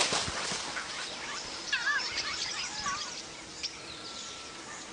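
Birds chirping in a quick cluster of short warbling calls between about two and three seconds in, over a steady hiss of bush background noise.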